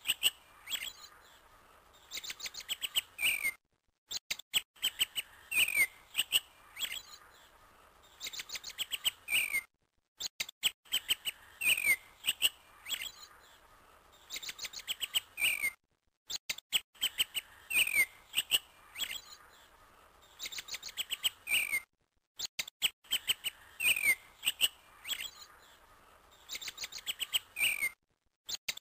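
Birds chirping: quick runs of short, falling chirps, a recording looped so the same phrase repeats about every six seconds, with a brief cut to silence between repeats.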